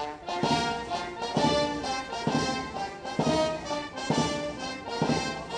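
Band music led by brass, playing sustained chords over a steady, heavy beat of roughly one stroke a second.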